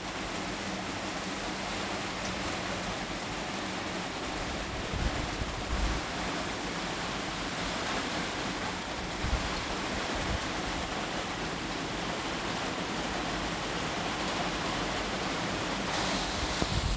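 Heavy rain pouring steadily, a dense even hiss. A few short low rumbles of wind gust on the microphone.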